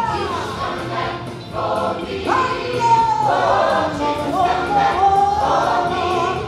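Gospel choir singing, with a woman soloist's voice leading over it, sliding down in pitch at the start and leaping up about two seconds in.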